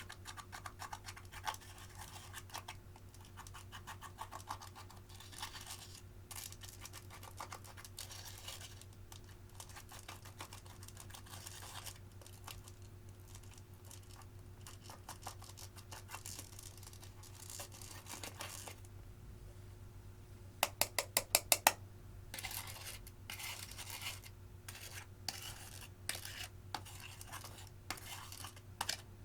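Slime being squished and worked by hand, with a steady run of wet crackles and small clicks. About two-thirds of the way in, a quick run of about eight sharp clicks is the loudest part.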